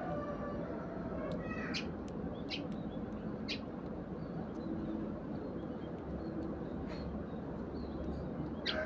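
Sparrows giving short, scattered chirps every second or so over a steady background noise.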